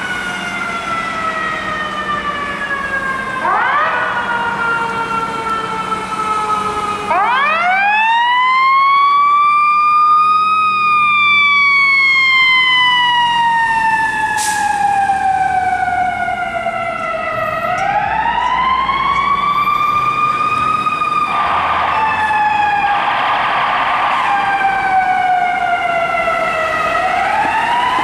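Fire truck's mechanical siren winding up in pitch and then coasting slowly down, over and over as the ladder truck pulls out; the longest wind-up, about a quarter of the way in, is the loudest. Two short horn blasts sound about three-quarters of the way through.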